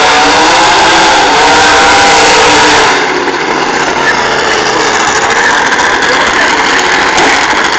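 A drag racing car launching hard off the start line and accelerating away down the strip. Its engine is loudest for about the first three seconds, then fades as the car runs away down the track.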